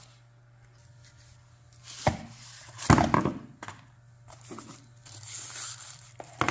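Cardboard packaging being handled on a wooden tabletop: a knock about two seconds in, a louder cluster of knocks and rustling about a second later, then softer rustling and a sharp click near the end.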